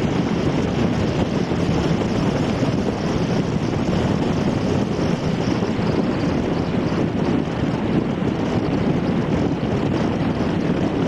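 Steady engine rumble of a tour boat under way, mixed with wind noise on the microphone.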